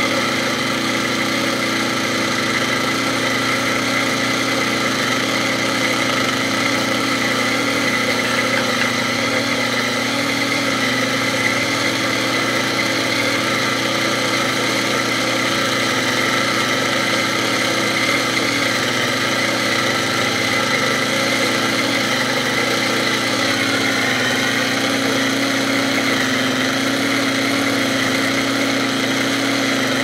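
A vintage Hoover Handivac hand vacuum's electric motor running steadily with a whine, while water pours onto it and is flung off the spinning fan.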